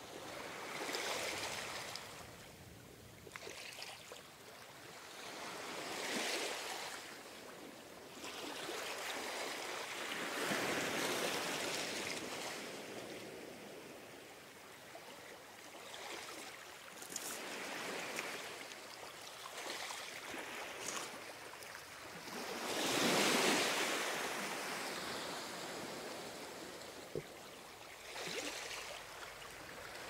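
Ocean surf breaking and washing ashore, rising and falling in swells every few seconds, with the loudest wave about three-quarters of the way through.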